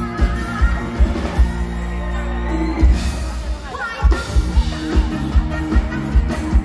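Live band playing a Thai luk thung song, with a woman singing into a microphone over drums, bass and keyboards. The drum beat drops out for a moment in the middle under a held bass note and comes back in about four seconds in.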